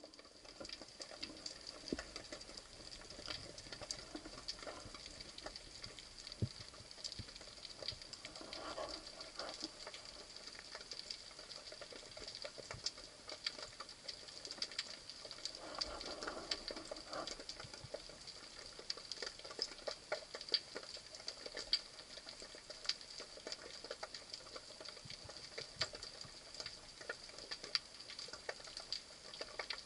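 Faint underwater ambience heard through a submerged camera: a steady, dense crackle of many tiny clicks, with a soft low rush twice, about 9 and 16 seconds in.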